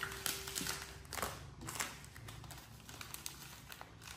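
A crinkly plastic snack wrapper rustling and crackling as it is pulled open by hand, in short irregular crackles and small taps.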